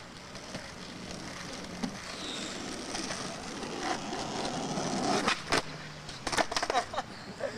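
Skateboard wheels rolling over rough aggregate concrete, a steady rumble that grows louder, then several sharp clacks of the board hitting the ground near the end as a trick is tried.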